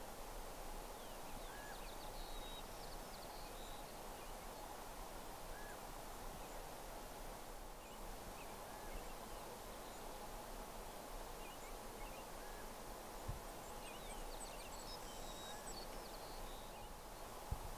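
Quiet open-country background with small birds calling faintly: short chirps every second or two and a couple of brief bursts of higher twittering. A soft knock comes near the end.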